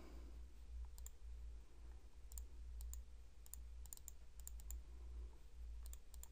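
Faint computer mouse clicks, a dozen or so scattered through, several in quick pairs, over a low steady hum.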